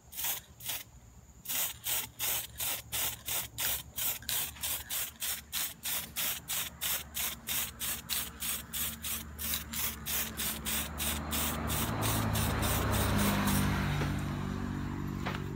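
Aerosol spray can hissing in quick short bursts, about four a second, then spraying continuously for a few seconds before stopping near the end.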